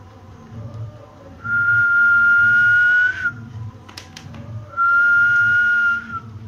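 A person whistling two long, steady notes at the same pitch, each held about a second and a half, with a couple of light clicks between them.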